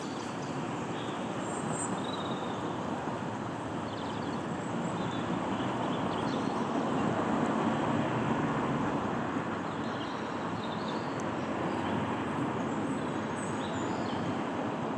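Steady rushing outdoor background noise, with faint short bird calls scattered through it.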